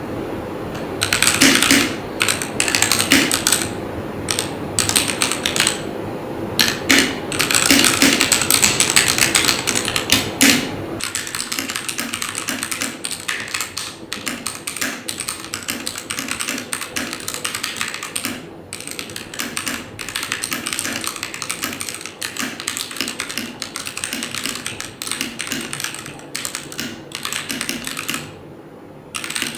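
Fast typing on Tecware B68+ 65% mechanical keyboards with double-shot PBT keycaps, one board after another, a sound test of Gateron red, brown, yellow and black switches. Quick runs of key clacks, and about eleven seconds in the sound changes to a thinner, lighter clatter as the typing moves to another board.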